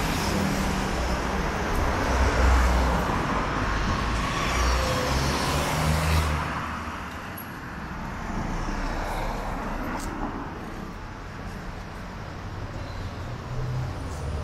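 Road traffic: cars and motor scooters driving through a street crossing close by, loudest through the first six seconds, then easing to a lower, steadier traffic hum.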